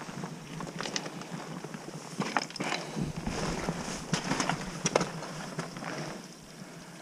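Wind rushing on the microphone, with a string of scattered sharp knocks and scuffs, most of them in the middle few seconds.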